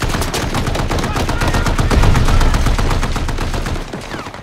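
Heavy automatic gunfire: a dense stream of rapid, overlapping shots with no break, loudest about two seconds in and easing a little near the end.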